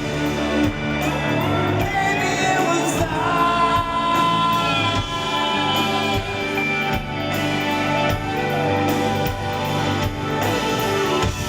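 Live rock band playing in a large hall, with a voice singing over the band.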